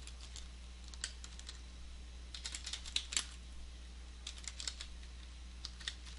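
Computer keyboard typing: five short bursts of keystrokes with pauses between them, over a faint steady low hum.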